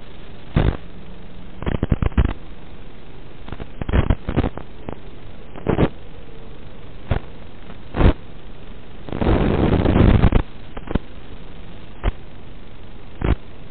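Steady hiss of analog FPV video-receiver audio static, broken by about ten louder crackling bursts of noise, the longest lasting about a second just past the middle. The bursts go with interference as the racing drone's video signal breaks up.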